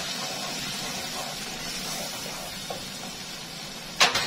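Tomato sauce and spices sizzling in hot oil in a pot, a steady hiss. About four seconds in, two sharp knocks as the wooden spoon strikes the pot.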